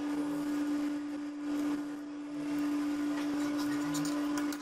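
Potato hash brown patties sizzling in hot ghee on a flat iron tawa, with faint crackles, over a steady hum.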